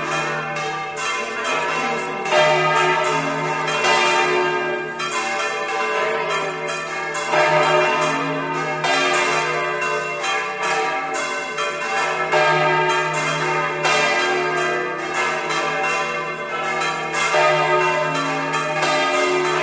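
Church bells swung full circle in the Spanish volteo style, several bells striking in dense, overlapping peals, with louder strokes coming back about every one and a half to two seconds.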